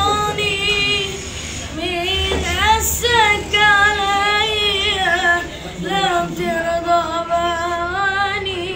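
A boy singing solo without accompaniment, in long held phrases whose pitch wavers and curls in ornaments, broken by brief breaths.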